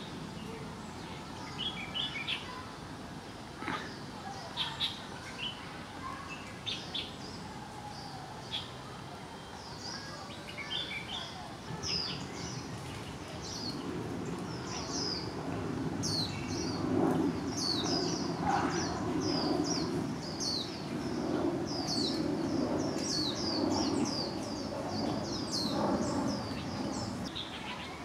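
Small songbirds calling: scattered short high chirps, then from about ten seconds in a fast, continuous run of repeated high, down-slurred notes. A low background murmur joins in the second half.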